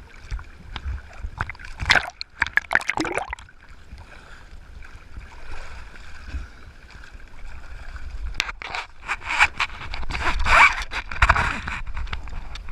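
Water gurgling and splashing around the camera, with two spells of crackling bubbles and knocks: one about two seconds in, and a longer one from about two-thirds of the way through.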